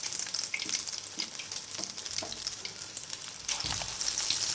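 Egg-dipped chicken pieces frying in hot oil in a kadai, a steady crackling sizzle with small pops, growing louder about three and a half seconds in.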